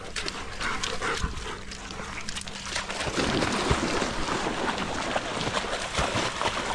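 Dogs splashing as they run through shallow river water, the splashing getting louder and continuous from about three seconds in, after a few short dog sounds near the start.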